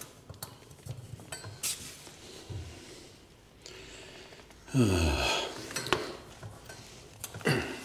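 Light metallic clicks and taps as a tapered gap gauge is worked into the gap around a bath waste fitting in a tiled floor. There are two short, louder sounds that fall sharply in pitch, about five seconds in and near the end.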